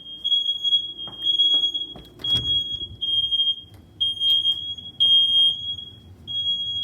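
Smoke alarm sounding: a high-pitched electronic tone beeping over and over, about once a second, set off by torchlight shone into the detector. A few faint knocks come in the first couple of seconds.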